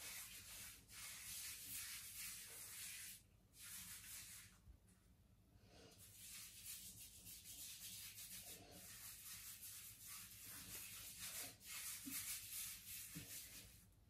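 Hands rubbing shaving foam into a stubbled scalp: a soft, hissy rubbing that stops briefly a couple of times.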